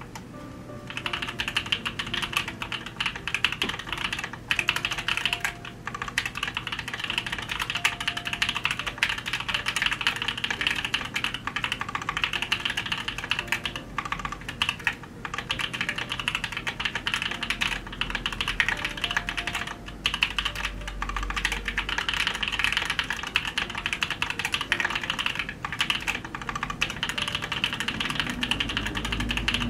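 Typing on a Noxary Valhalla mechanical keyboard with Gateron Cream Soda switches on a 5mm polycarbonate plate: a steady run of fast keystrokes starting about a second in, with brief pauses every few seconds.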